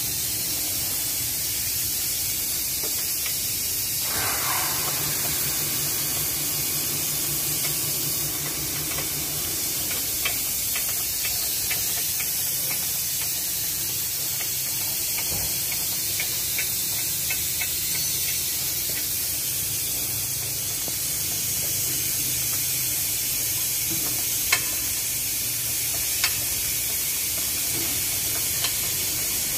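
Steady hiss of workshop background noise, with a low rapid pulsing for about five seconds starting about four seconds in, and a few faint clicks of tools against the car's underbody.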